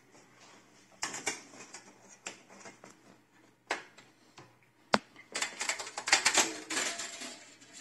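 Metal clicking and rattling as the old oven thermostat and its sensor are unclipped and pulled free from the oven: scattered clicks, one sharp click about five seconds in, then a dense run of clicking and scraping.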